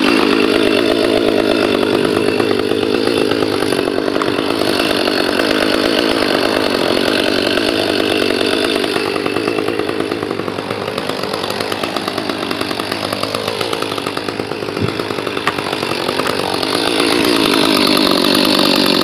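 Echo CS310 two-stroke chainsaw running without cutting. Its pitch and level sag somewhat in the middle and pick up again near the end.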